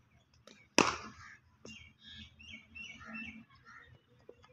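Leather cricket ball striking a bat once, a single sharp knock about a second in, followed by scattered short high chirps.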